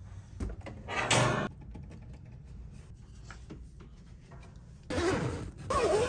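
Attic pull-down hatch being opened by its cord: a click, a creak about a second in, then a few light knocks. About five seconds in, a louder, steady noise starts.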